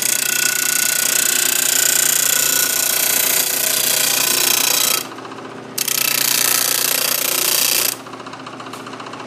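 Homemade disc sander, a sandpaper disc on a plywood backing turned by an electric motor, sanding the end of a wooden stick: a loud grinding hiss for about five seconds, a short break with only the motor running, then about two more seconds of sanding before the wood comes away and the motor runs on. The disc spins slightly wobbly.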